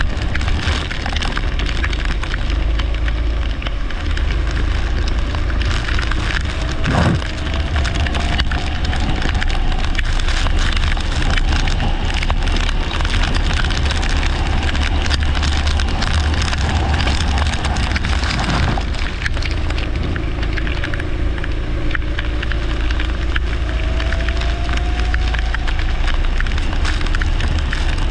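Leisure (rental) kart engine running at race pace under a heavy rumble and crackle of wind on the microphone, with the engine's note rising twice as the kart accelerates.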